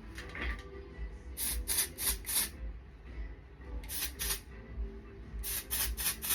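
Aerosol can of Milbon Dry Texture Spray spritzing onto hair in short hissing bursts: four quick sprays, then two, then four more.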